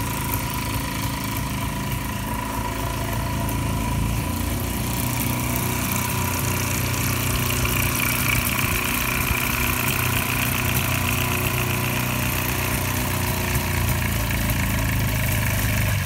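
Excalibur light-sport aircraft's propeller engine running steadily at taxi power as it rolls along. It grows a little louder as it comes closer.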